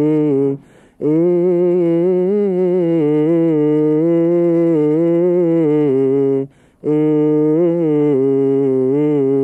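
A man's voice chanting a long wordless melisma of Coptic liturgical chant: sustained notes with small wavering ornaments, breaking off briefly twice.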